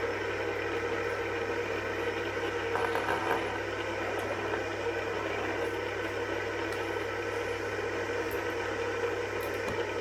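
Fidget spinners spinning on their bearings, a steady whirring hum.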